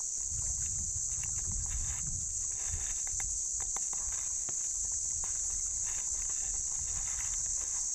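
Steady high-pitched drone of an insect chorus in the riverside trees, unchanging throughout, over a low uneven rumble and scattered faint ticks.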